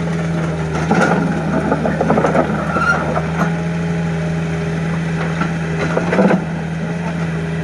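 Engine running at a steady speed with a constant hum, with a few scattered knocks and clanks over it, the loudest about six seconds in.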